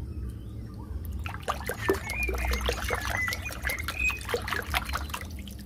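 Hand scrubbing a rubber toy in a basin of water: a run of quick splashes and sloshing, busiest through the middle and easing off near the end. A few faint high chirps sound behind it.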